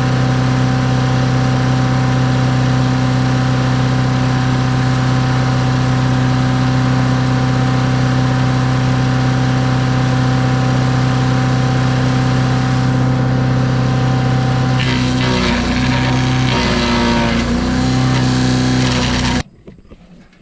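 Small gas engine of a wood chipper running steadily at a constant speed, then labouring unevenly for the last few seconds as the chipper jams. The sound cuts off suddenly near the end.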